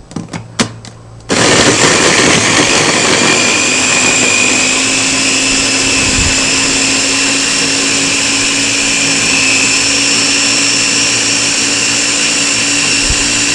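A few sharp clicks, then about a second in a Ninja pod-style blender's motor starts and runs steadily with a high whine, its pitch rising a little over the first few seconds. It is blending frozen banana chunks with milk.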